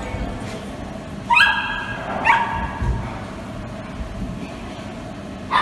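Dog barking in short, high yips: two about a second apart, then another near the end.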